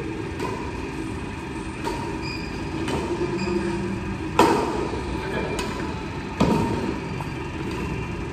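Badminton rackets striking a shuttlecock during a doubles rally: a string of sharp smacks about a second apart, two of them, about four and a half and six and a half seconds in, louder than the rest. A steady low hum runs underneath.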